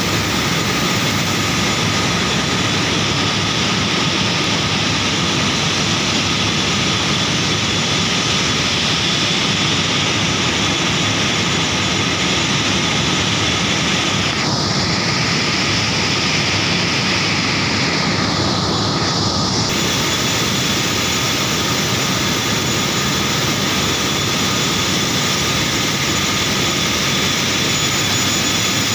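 Paper machine running: a loud, steady industrial roar of the wet end as pulp stock flows over the forming section and rolls turn, with a few constant whining tones. About halfway through, a brighter hiss joins in for around five seconds.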